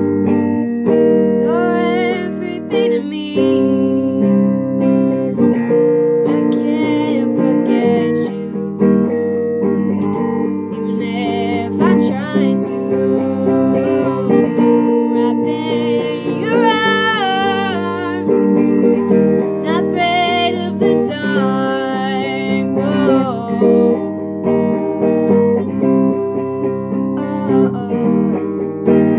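A solo voice singing an original song over a strummed acoustic guitar. The sung phrases come and go while the guitar chords ring on underneath.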